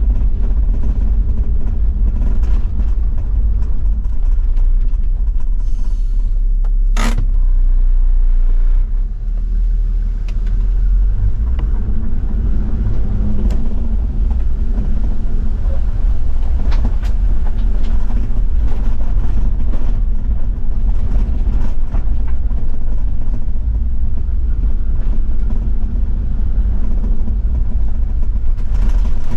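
Toyota Land Cruiser 70 diesel driving on an unpaved gravel road: a steady low rumble of engine, drivetrain and tyres, with scattered clicks and one sharp knock about seven seconds in.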